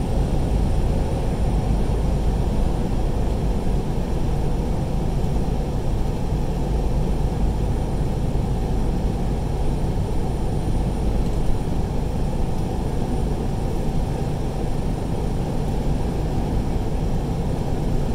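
Steady low rumble of engine and tyre noise inside a truck's cab cruising at highway speed.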